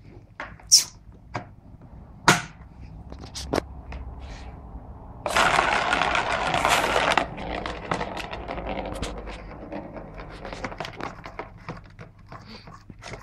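A ball rolling and rattling around the plastic circular track of a cat scratcher toy, with sharp knocks as a Bengal cat bats at it. The loudest part is a dense rolling rumble lasting about two seconds in the middle, followed by lighter, quick clatter.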